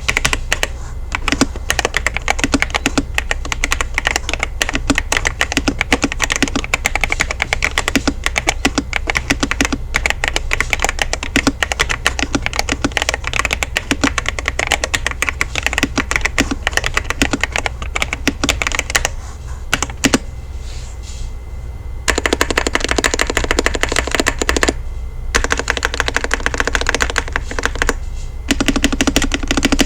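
Fast typing on an LTC Nimbleback NB832 gasket-mounted mechanical keyboard with blue creamy switches: a rapid, continuous patter of keystrokes that stops for about three seconds past the middle and pauses briefly twice near the end.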